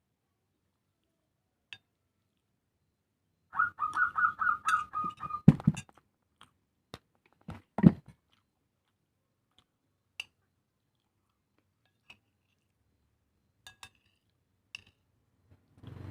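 Close-miked eating sounds from someone eating spicy clams and seblak: a quick run of about seven short squeaky sucking sounds a few seconds in, two heavy low thumps, and scattered small clicks, with silence between.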